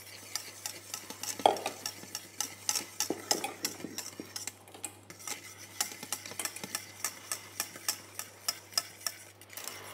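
Wire balloon whisk beating a thick, creamy egg-white mixture in a stainless steel saucepan, its wires clinking rapidly and regularly against the metal pot.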